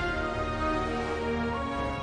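Background music with held, sustained notes over a low bass.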